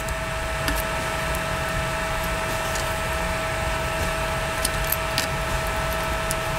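Steady hum with a constant whining tone, from a machine or appliance running. A few faint, sharp clicks over it, from plastic pins being squeezed into a 3D-printed part with cloth-padded pliers.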